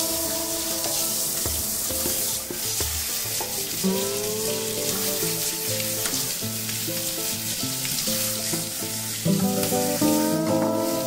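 Handheld shower sprayer spraying water in a steady hiss onto a wet dog's coat in a bathtub, with background music playing.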